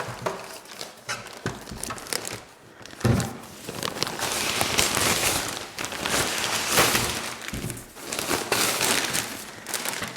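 Packaging being pulled off and handled: steady rustling and crinkling, with a few knocks, about 3 s and 7.5 s in.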